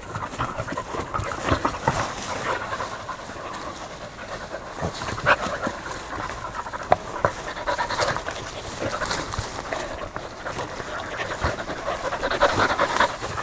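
Several dogs play-wrestling in grass, panting hard, with scuffling and rustling as they tumble over each other.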